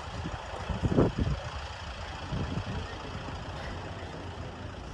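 Leyland Atlantean AN68/1R double-decker bus's Leyland O.680 diesel engine running with a steady low rumble, with a brief loud thump about a second in.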